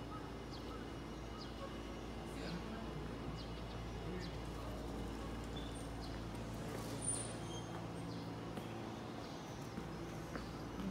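Steady low background hum of a quiet, empty railway platform, with faint short high chirps scattered through it and a single sharp click about seven seconds in.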